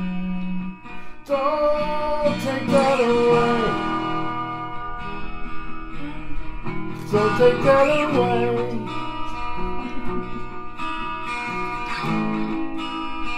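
Acoustic guitar strumming chords, with a singing voice carrying the melody in two phrases, the first about a second in and the second about seven seconds in.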